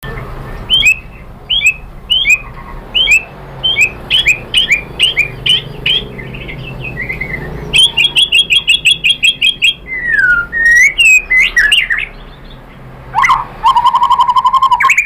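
White-rumped shama (murai batu) singing a varied song: a run of short, sharply falling whistled notes, then a fast rattling trill, sweeping whistles, and near the end a long held lower whistle over rapid ticking notes.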